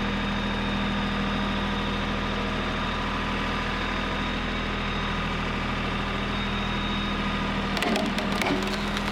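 Tractor engine running steadily at idle. About eight seconds in, a short burst of cracking and knocking.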